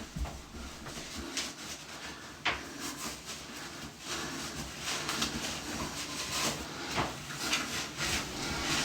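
Faint scrubbing and rubbing with scattered small knocks and clicks as the trunk of an elephant figure is cleaned by hand.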